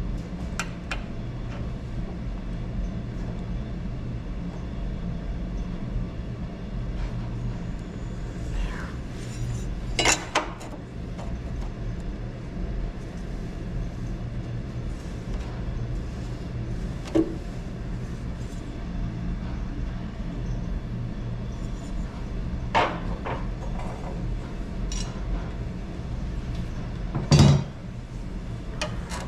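A few sharp metal clanks and clinks, steel frame pieces being handled and test-fitted, about four over half a minute with the loudest near the end, over a steady low hum.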